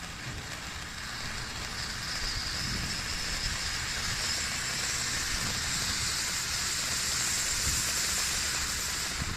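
Fountain firework spraying sparks with a steady hiss that builds a little and cuts off suddenly as it burns out.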